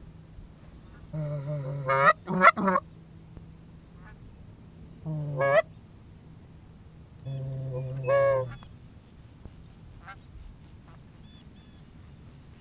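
Hand-blown Canada goose call, sounded four times. Each call starts on a low note and breaks upward into a high honk, calling in a flock of Canada geese on approach.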